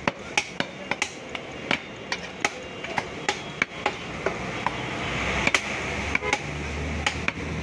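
Heavy cleaver chopping beef on a wooden log chopping block: quick, uneven sharp chops, about two or three a second. Steady background noise grows louder about halfway through.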